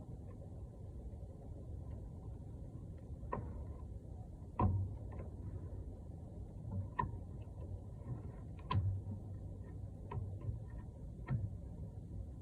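Scattered metallic clicks and knocks from hand tools working on truck front-brake parts, about seven spread irregularly over a steady low background rumble.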